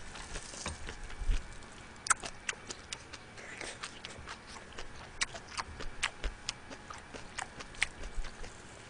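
Close-miked eating of steamed flower crab held in gloved hands: irregular sharp clicks and wet smacks of chewing and sucking on the shell, a few a second. There are a couple of low thumps in the first second or so.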